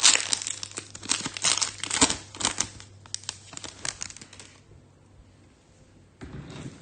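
Trading-card pack wrapper being torn open and crinkled, a quick run of crackles that stops about four and a half seconds in.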